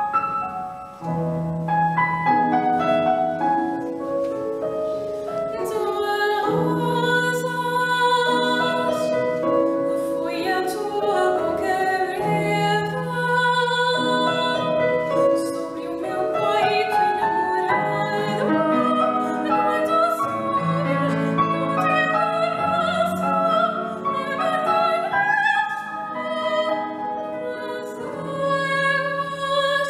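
Classical chamber music for violin, cello and piano, with long held low notes under a wavering melody.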